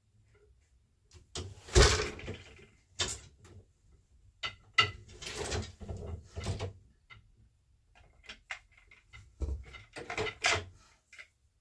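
Wooden knocks and short sliding clunks from an 8-shaft loom being worked by hand: the beater pulled against the cloth and a boat shuttle picked up and set down. The loudest knock, with a low thump, comes about two seconds in, and further clusters follow near the middle and near the end.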